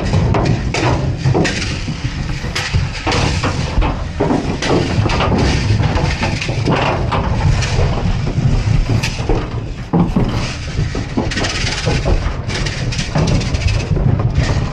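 Black calves crowding and shuffling inside an aluminium livestock trailer: a dense stream of knocks and clatters from hooves and bodies bumping the floor and ribbed walls, mixed with the rattle of a plastic rattle paddle being shaken at them.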